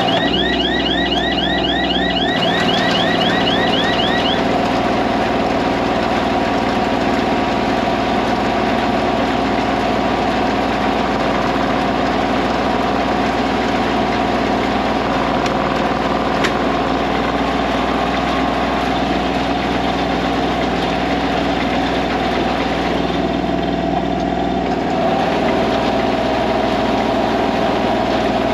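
Tractor engine running steadily, with a quick series of repeated high chirps over it in the first few seconds.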